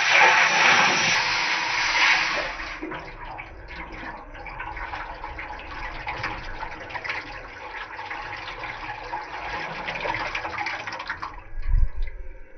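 Water pouring from a metal bottle into a metal cooking pot. It splashes loudly for the first two seconds or so, runs as a lighter steady stream, and stops about a second before the end. Then come a couple of low thumps.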